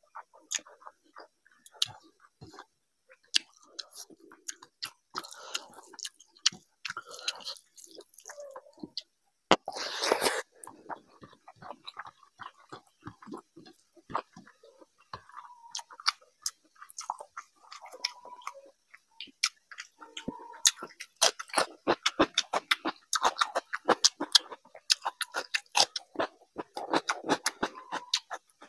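Close-miked wet chewing and lip-smacking as a mouthful of rice and curry is eaten by hand, with many short moist clicks that come quicker near the end. One brief, louder rushing noise about a third of the way in.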